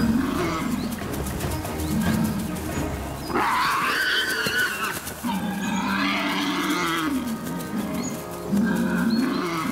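Wild boars fighting: repeated deep grunts and roars, with two shrill squeals in the middle, over background music.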